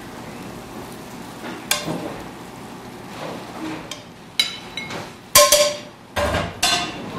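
Kitchen cookware and utensils knocking and clinking: about six sharp knocks, some ringing briefly, the loudest a little past the middle.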